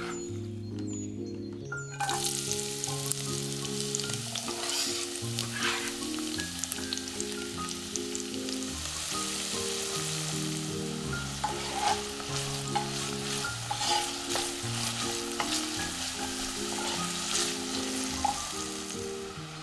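Food frying in oil in a pan: a steady sizzle with scattered crackles and pops, starting about two seconds in. Soft background music plays underneath.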